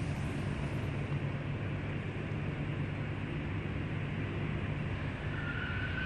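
Steady low mechanical hum, with a steady high-pitched tone coming in near the end.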